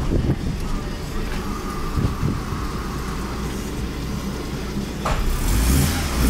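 BMW E36 316i's 1.9-litre M43 four-cylinder engine idling, heard from inside the cabin, getting louder about five seconds in.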